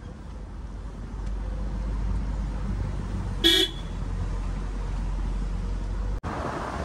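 Suzuki Jimny driving on a winding mountain road: steady low engine and road rumble, with one short horn toot about three and a half seconds in.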